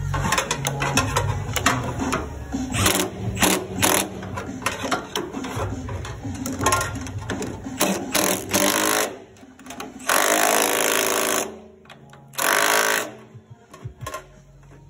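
Hand-tool work on a diesel particulate filter's clamp and seal: irregular metallic clicks and knocks, then two bursts from a powered tool near the end, one about a second and a half long and one about half a second long.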